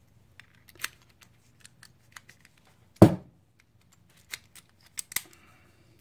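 U-Haul 2-inch brass padlock and its keys being handled: scattered small clicks and metal clinks, with one louder knock about three seconds in.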